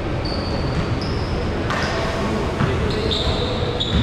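Basketballs bouncing on a hardwood gym floor, a few separate thumps, with short high sneaker squeaks from players moving on the court, all in a large hall.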